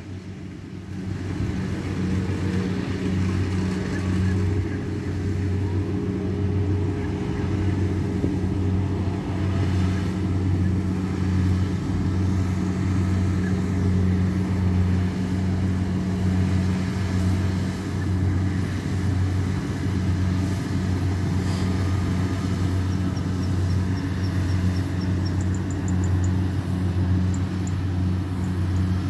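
Kubota DC70 combine harvester's diesel engine running at steady working speed as it cuts ripe rice: a constant low drone.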